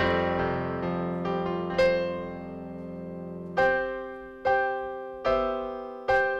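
Digital piano playing slow chords. Sustained, flowing chords give way to a held chord, then from about halfway single chords are struck a little more than once a second.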